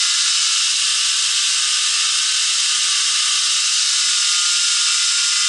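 A 2x27-inch belt grinder running with no load, its abrasive belt giving a loud, steady high hiss with a faint whine underneath.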